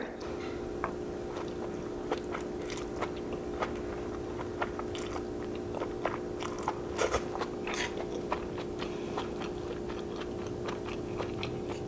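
A person chewing a mouthful of japchae, Korean glass noodles with vegetables, with many small wet mouth clicks and smacks. A steady low hum runs underneath.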